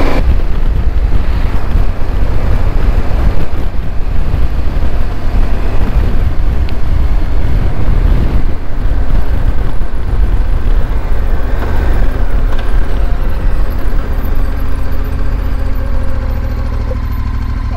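Heavy wind buffeting and road rumble on a camera microphone on a KTM 1290 Super Adventure motorcycle coasting downhill with its fuel nearly gone. The rush eases slightly near the end as the bike slows.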